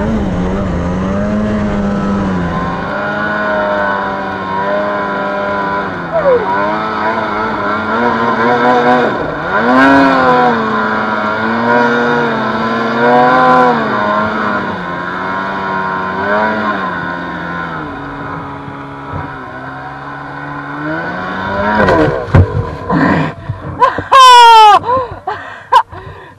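Snowmobile engine climbing through deep snow, its pitch rising and falling with the throttle. Near the end come several sharp knocks, then a loud rev whose pitch drops away steeply as the sled comes to a stop tipped over in the snow.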